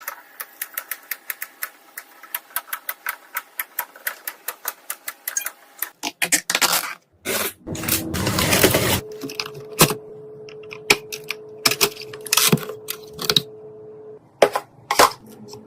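A rapid, even run of sharp clicks, about five a second, then a burst of rushing noise about seven seconds in, followed by a steady hum under scattered single clicks and knocks; the hum stops about fourteen seconds in.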